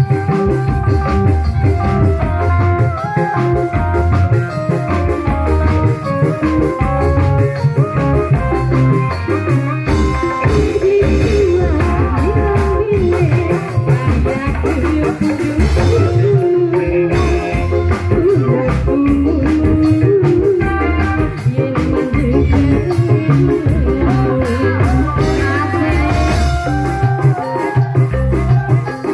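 Live bendrong dangdut music from a Reog Indramayu troupe: drums keeping a steady beat under a melodic line, with a woman singing into a microphone.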